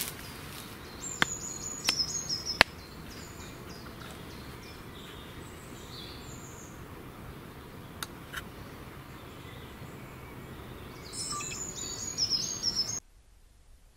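Sharp plastic clicks of a trail camera's case being unlatched and opened by hand, three loud ones in the first few seconds and two fainter ones about eight seconds in, over birds chirping in woodland. The sound drops to a much quieter hush about a second before the end.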